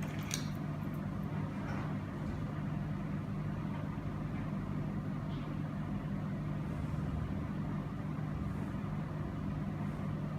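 Steady low mechanical hum, unchanging throughout, with a couple of faint ticks just after the start.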